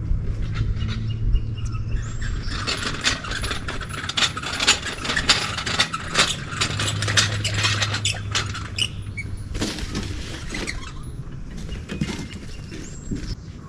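Squeaking and scraping as a heavy swim spa is shifted into position on its pad, a dense run of short creaks and scrapes through the middle, over a low machine hum at the start and again around the middle.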